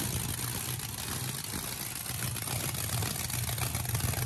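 Cammed 4.8-litre LS V8 running steadily through open headers, warming up just after being restarted, not yet up to temperature.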